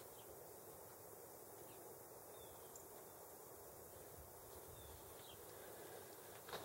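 Near silence: faint outdoor hiss with a few faint, short, high bird chirps, and a brief, slightly louder chirp near the end.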